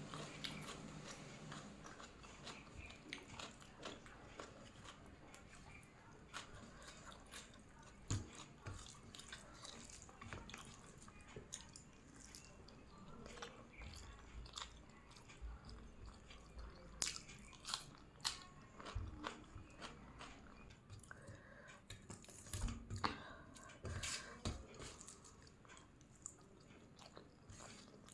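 A person chewing and eating biryani close to the microphone: many small sharp mouth clicks and smacks, irregular, growing busier and louder in the second half.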